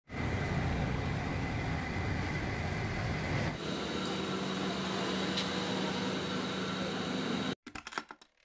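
Steady mechanical background noise with a low hum. Its character shifts at a cut about three and a half seconds in, and it cuts off suddenly near the end, followed by a few brief ticks.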